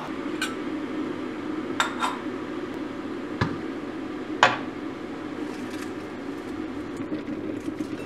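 Glassware clinking on a kitchen counter as a glass teapot and its metal infuser are handled: about five sharp clinks and knocks over the first half, over a steady low hum.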